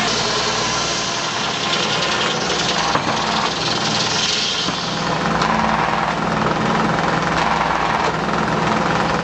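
Belt-driven sawmill with a large circular saw blade and its engine running steadily while the blade saws through a log.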